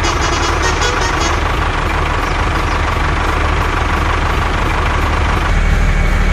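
Truck engine running steadily, growing a little louder near the end, with a horn tooting that dies away in the first second.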